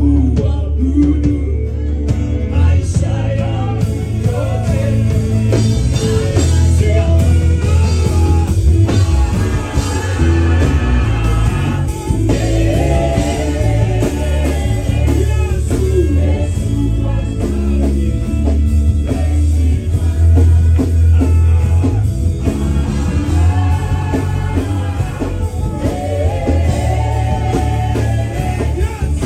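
Live gospel praise-and-worship music: lead and backing vocalists singing in Swahili over a band with acoustic guitar, drum kit and keyboard.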